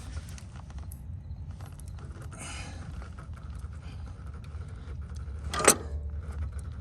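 Steel crowbar prying on a skid steer's quick-attach locking pins: scattered metal clinks and scraping, with one loud sharp clank near the end, over a low steady rumble.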